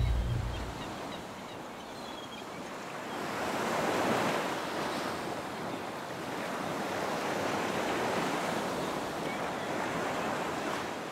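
Ocean surf washing onto a shore, swelling about four seconds in and again around eight seconds. A low rumble fades out in the first second.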